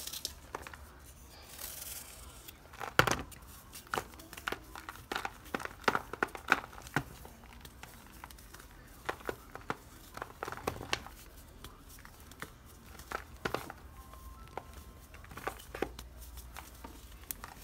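A dried block of Comet cleanser and baking soda being shaved with a knife and then broken and crumbled by hand, giving irregular dry crunches and crackles. The loudest crunch comes about three seconds in.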